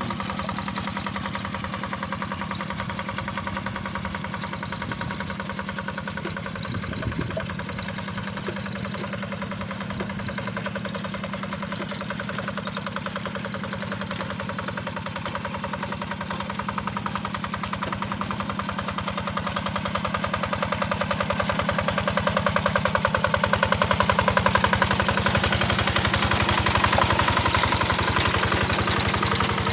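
The diesel engine of a Yanmar hand tractor, running steadily with rapid, even firing pulses while working the field. It gets louder in the last third.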